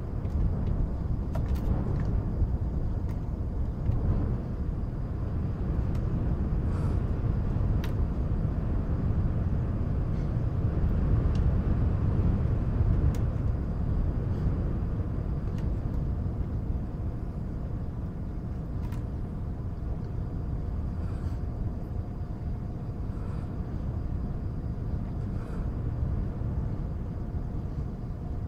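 Steady low rumbling wind and white-noise bed, with faint, scattered clicks of jigsaw puzzle pieces being tapped and sorted.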